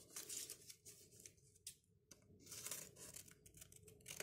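A packet of fabric dye being opened by hand: faint, irregular tearing and crinkling of the packet, with a few small clicks.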